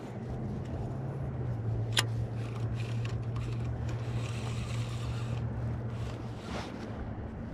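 Electric kayak trolling motor (MotorGuide Xi3) running with a steady low hum that drops slightly in pitch about a second and a half in and stops near the end, with a sharp click about two seconds in.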